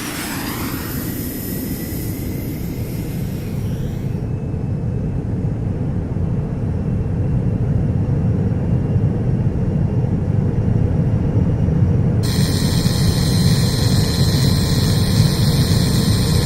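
Jet aircraft engine sound effect: a steady rumble that grows louder, with a whine falling in pitch at the start. A high whine joins about twelve seconds in and drops in pitch near the end.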